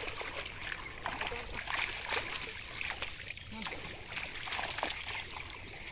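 Shallow pond water splashing and sloshing in small irregular bursts as a seine net is hauled through it and a person gropes in the water inside the net.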